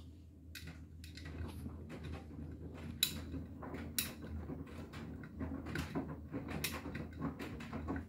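BEKO WTK104121W front-loading washing machine tumbling wet laundry in its drum: a steady low motor hum under the slosh of water and clothes, with two sharp clicks about a second apart near the middle.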